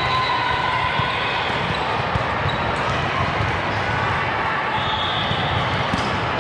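Volleyball game sounds in a gym: a ball thudding on hands and floor and sneakers squeaking, over steady spectator chatter.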